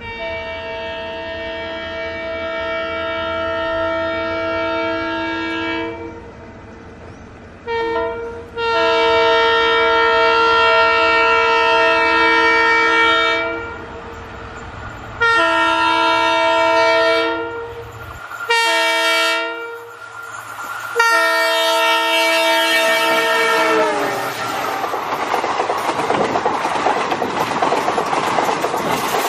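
A WDP4D diesel locomotive sounds its multi-tone horn in a series of long and short blasts as it approaches. The chord drops in pitch as the locomotive passes at about 24 seconds in. Then the train's coaches rush past close by with a rumbling clatter of wheels on rail joints.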